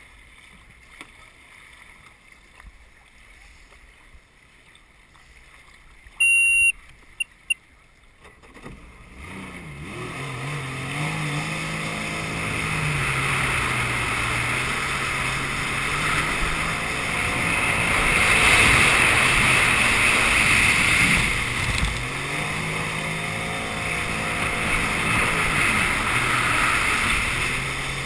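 A loud electronic beep followed by two short beeps, then about nine seconds in a jet ski's engine comes in and runs under throttle, its pitch dropping and rising again, with rushing water and wind noise as the craft speeds over the water.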